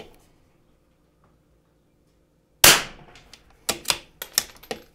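Near silence, then a single .22 LR rimfire rifle shot about two and a half seconds in, followed by a quick series of sharp metallic clicks and clacks as the bolt is worked to chamber the next round.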